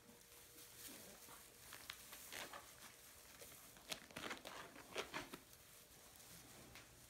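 Faint rustling and crackling of straw bedding under puppies' paws as they move about. There are a few louder crunches between about four and five seconds in.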